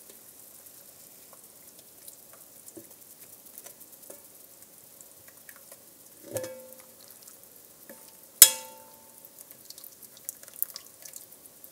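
Metal tongs lifting cabbage rolls out of a simmering pot of broth, over a faint steady sizzle. The tongs clink against the cookware with a short ring a little past halfway, then give a sharp ringing clank about two thirds in that dies away over about a second.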